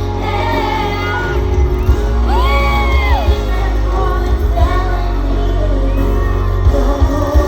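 Pop song played loud over a concert sound system during a sound check: a woman sings the melody, with long held and gliding notes over a heavy bass.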